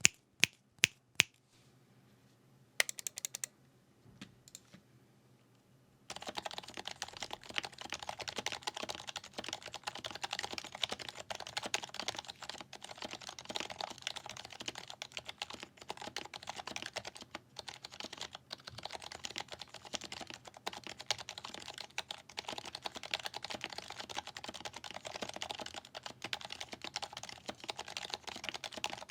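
Lubed HHKB Professional 2 Type-S Topre keyboard with BKE Redux light domes being typed on. A few separate sharp clicks and two brief runs of keystrokes come in the first few seconds, then fast continuous typing from about six seconds in.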